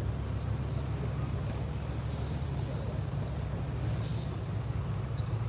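Tour boat's engine running, a steady low rumble, with wind blowing across the microphone on the open deck.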